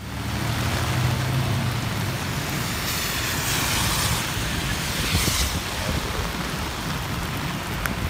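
Heavy rain pouring onto a wet street, a steady rush of noise, swelling twice in the middle as if tyres hiss past on the flooded road.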